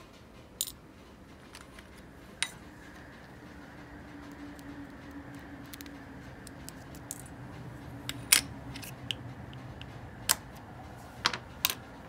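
Small parts of an Abu Garcia Ambassadeur 1500C baitcasting reel being handled: irregular sharp clicks and taps, about eight in all, the loudest about eight seconds in, over a faint steady hum in the middle.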